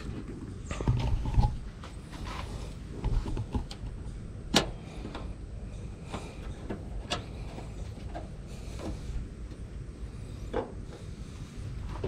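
Rubber hood-seal pieces being handled and pressed onto a truck's fender lip: faint rustling and scraping with a few sharp clicks, the loudest about four and a half seconds in.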